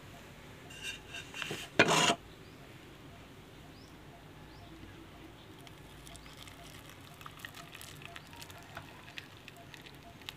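Hot milk tea poured from a metal pan through a plastic tea strainer into a glass, a faint pattering of liquid with small ticks. A short loud clatter comes about two seconds in, after a few lighter knocks.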